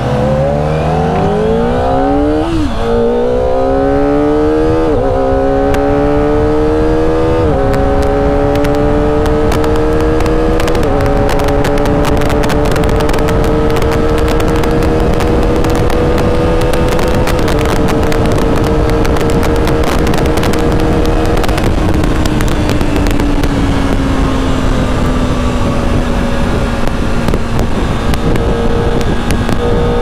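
Kawasaki ZX-25R's 249 cc inline-four on its standard exhaust, accelerating through the gears. The engine note rises and drops back at each of four upshifts, then holds steady at cruising speed. It falls away gradually as the throttle is eased about two-thirds of the way in, and picks up again near the end.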